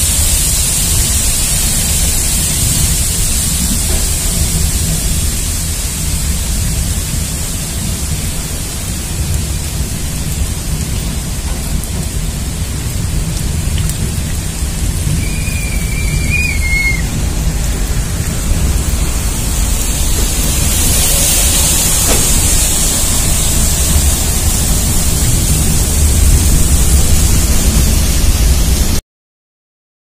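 Steady loud rushing noise of rain and waterfalls streaming down a rock cutting, over a low rumble from the moving train. A short high wavering whistle sounds about halfway through, and everything cuts off suddenly near the end.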